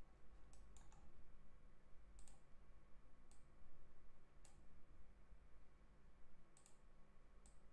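Computer mouse button clicks while placing and dragging spline points: about seven faint, sharp clicks at irregular intervals over a low steady hum.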